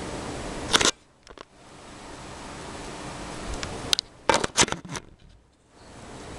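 Handling noise from a hand touching and adjusting the webcam up close: sharp clicks and knocks about a second in and a quick cluster of them about four to five seconds in, over a steady hiss.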